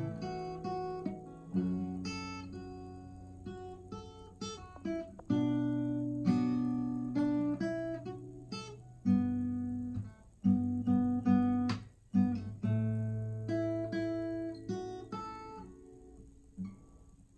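Background music on acoustic guitar: plucked and strummed chords, each ringing and fading before the next.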